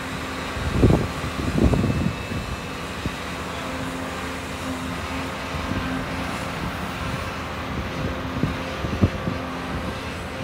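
Barge-mounted hydraulic excavator running steadily while it works a clamshell dredging bucket: an engine-and-hydraulics hum with a steady low tone, and a few low thumps in the first two seconds and once more near the end.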